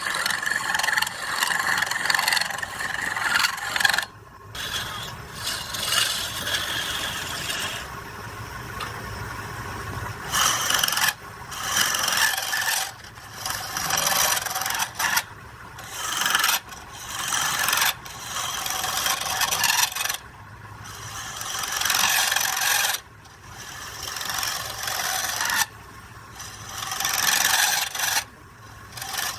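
A tool scraping against a spinning wooden workpiece on a lathe in repeated passes of a couple of seconds each. Many passes grow louder and then stop sharply. A faint steady hum runs underneath.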